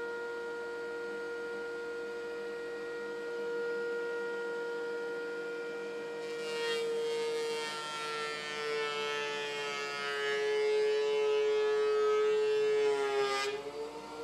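DeWalt thickness planer running with a steady whine, then taking a pass on a rough-sawn walnut board carried on a planer sled: about six and a half seconds in the cutting noise starts and the motor's pitch sags under the load. Near the end the cutting noise stops abruptly as the board clears the cutterhead, and the motor's pitch climbs back.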